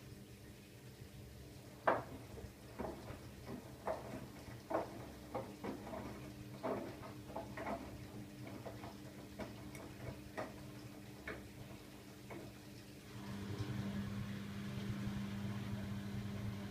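Siemens iQ700 washing machine running a wash: a series of irregular light knocks about once a second as the drum turns, then about thirteen seconds in a louder, steady hum starts.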